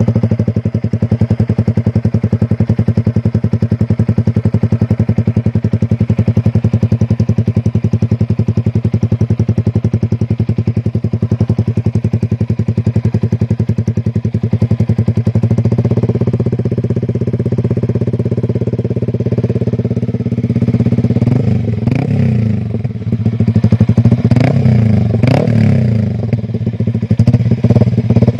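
Yamaha R15 V3's 155 cc single-cylinder engine running through an SC Project aftermarket exhaust, very loud. It idles steadily just after starting, then is blipped several times in the last third. There is a slight rattle, which the owner puts down to the exhaust's loose mounting plate.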